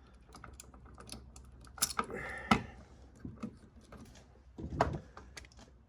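Irregular small clicks and light scrapes of a copper wire loop and hand tools being worked under the terminal screw of a duplex electrical outlet, with louder clicks about two seconds in and again near the end.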